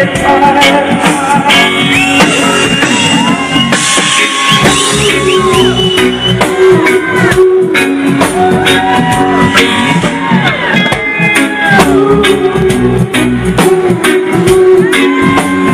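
Live reggae band playing an instrumental passage: a lead line sliding between notes over a steady bass and drum groove.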